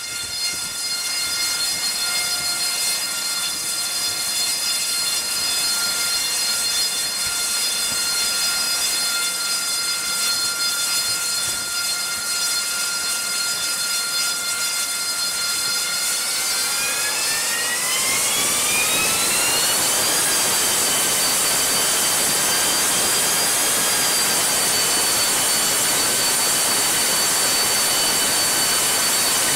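AV-8B Harrier II's Rolls-Royce Pegasus turbofan running with a high-pitched whine. About sixteen seconds in the whine rises in pitch for about four seconds as the engine spools up, then holds steady at the higher pitch, slightly louder.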